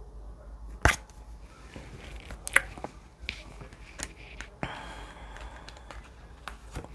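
Divination cards handled on a table: a few sharp snaps and taps as cards are drawn and laid down, then a soft steady rustle of cards sliding in the last two seconds or so.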